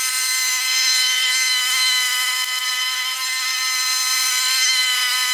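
Steady high-pitched motor whine, a hum of many even tones that holds level without a break.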